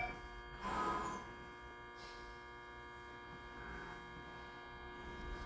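Tobu 20400-series electric train standing still after braking to a stop, its onboard electrical equipment humming steadily. Two short hisses of air come about one and two seconds in.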